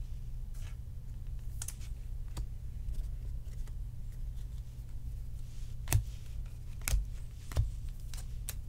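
Trading cards being handled and sorted by hand: scattered light clicks and taps of cards against each other and a stack set down on the table, a few of them sharper about six and seven seconds in, over a steady low hum.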